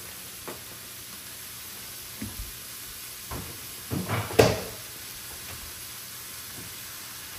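Onion, garlic and ground meat sizzling steadily in frying pans on the stove, with a few knocks and clunks of kitchen handling. The loudest clunks come about four seconds in.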